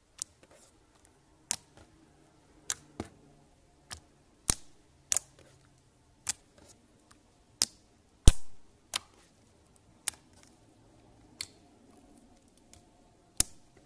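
Clear slime being pressed and poked by hand, giving sharp popping clicks as trapped air bursts. The pops come irregularly about once a second, some in quick pairs, and the loudest comes about eight seconds in with a short squelchy tail.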